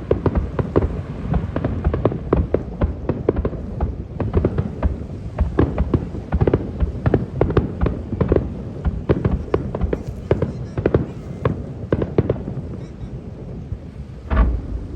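Fireworks display: a dense, rapid string of cracks and bangs, with one louder boom near the end.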